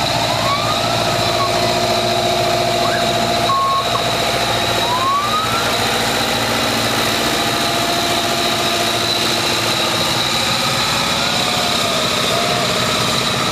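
White 2-60 tractor's engine running steadily at idle.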